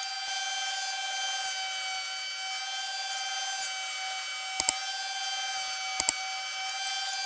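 Combination planer-thicknesser running with a steady high-pitched whine, as wood bars are passed through it. A few sharp clicks come in quick pairs about four and a half and six seconds in.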